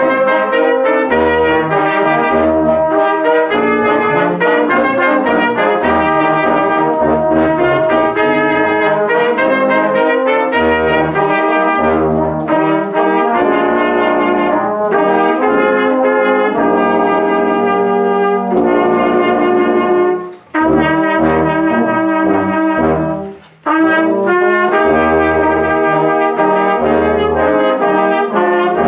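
Church brass band of euphoniums, tenor horns and trumpets playing a piece in full chords, with a pulsing bass line. The music breaks off twice for a moment about two-thirds of the way through, between phrases.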